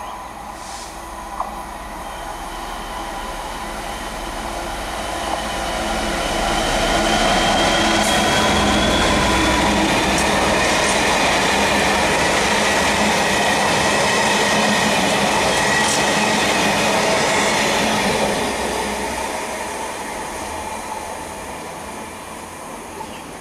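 A train passing: the sound builds over about six seconds, stays loud for about ten, then fades away, with a high steady wheel squeal running through the loudest part.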